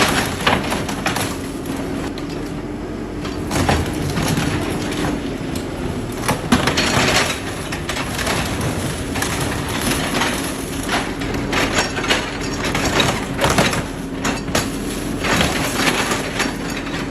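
A car body being crushed and torn apart by a heavy scrapping machine: irregular crunching and cracking of metal over the machine's steady drone.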